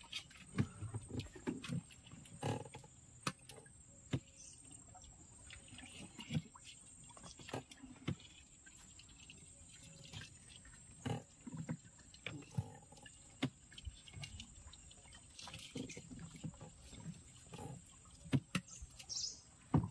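Scattered small knocks, clicks and water sounds from a small boat as a baited crab line is hauled in by hand, with a brief falling squeak near the end.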